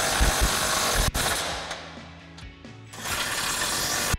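Cordless impact wrench hammering a bracket bolt tight through a socket. It stops about a second in, then runs again in a second burst near the end.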